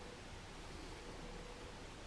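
Quiet, steady hiss of room tone with a faint hum.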